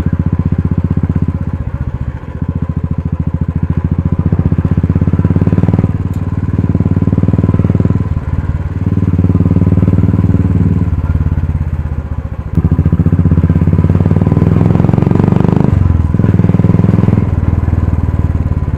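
Royal Enfield Classic 350's single-cylinder engine running on the move through an aftermarket dolphin silencer, a deep bass exhaust note. It dips and picks back up several times as the throttle is eased off and opened again.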